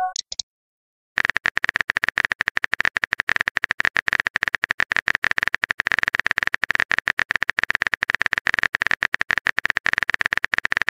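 Keyboard-typing sound effect from a texting-story app: a fast, dense run of clicks that starts about a second in and goes on without a break, as the next message is being typed. Just before it, the tail of a message-alert chime.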